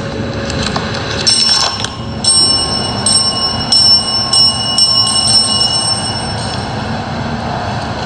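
A small high-pitched temple bell struck in a quick run of strokes, each leaving a bright ringing tone that hangs on and fades out a few seconds later, over a steady low background noise.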